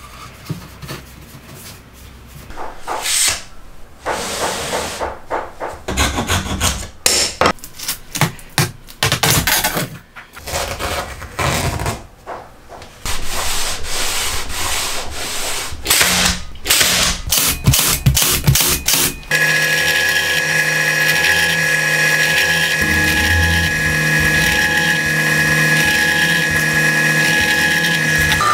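Plywood sheets being handled, slid and rubbed across a wooden tabletop, with scattered knocks. About two-thirds of the way in, a drill press motor starts and runs steadily with a constant whine as the bit drills into plywood.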